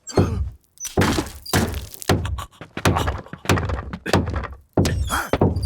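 A steady series of heavy thuds, about two a second.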